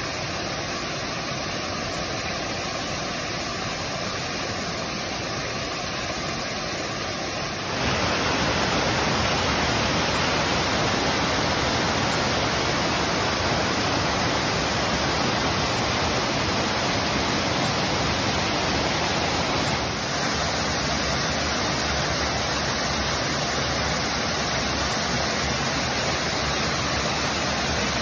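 Steady rushing water of a waterfall. The sound jumps louder about eight seconds in and shifts slightly about twenty seconds in.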